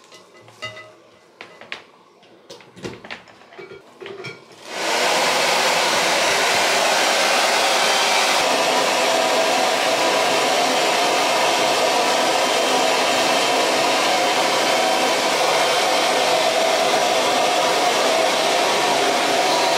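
A few light clicks and rustles as a hair dryer's cord is unwound, then a handheld hair dryer switches on about five seconds in and blows steadily while drying wet hair.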